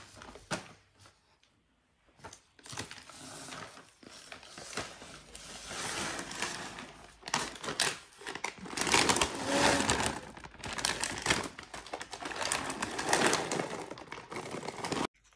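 Plastic pet-food packet crinkling and rustling as it is handled, with many irregular clicks. The rustling builds to its loudest around the middle and stops abruptly shortly before the end.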